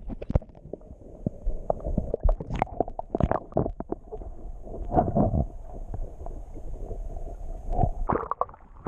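Water sloshing and splashing around a kayak, with many irregular knocks and a low rumble.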